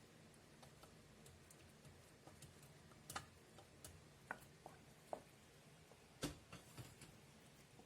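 Near-quiet kitchen with a low steady hum and a dozen or so faint, irregular clicks and light taps of a utensil against the soup pot, the sharpest about three seconds in and about six seconds in.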